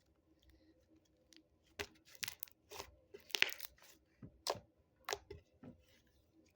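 Slime mixed with packing peanuts being squished and folded by hand, giving a run of sharp air-bubble pops and crunches, about ten in all, starting a couple of seconds in.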